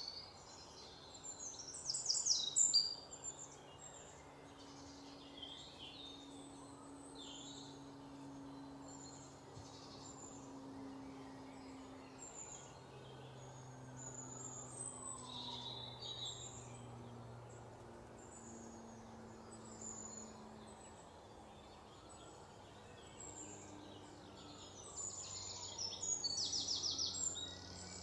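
Small birds chirping and calling, with bursts of rapid trilling about two seconds in and again near the end.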